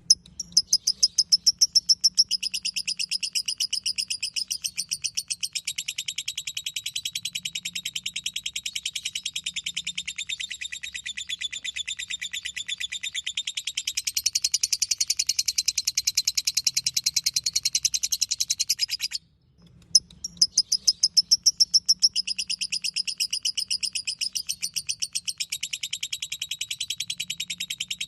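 Lovebird 'ngekek': a long, very fast, unbroken high-pitched chattering trill, loudest as it begins. It breaks off briefly about two-thirds through and starts again.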